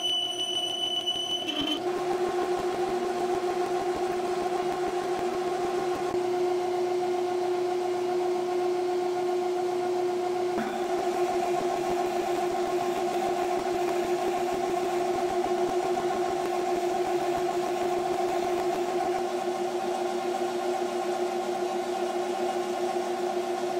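Metal lathe running with a steady two-tone whine from its drive, while a twist drill in the tailstock chuck bores into the spinning metal bar. For the first second or two a high-pitched ringing from the carbide turning tool cutting the bar is heard, then it cuts off abruptly.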